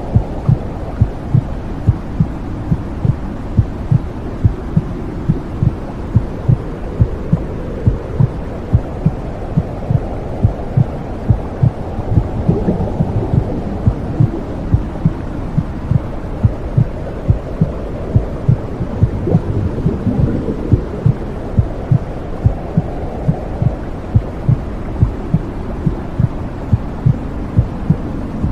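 Womb sound: a muffled heartbeat thudding evenly, about two beats a second, over a steady low whooshing hum, as a baby hears it inside the mother's womb.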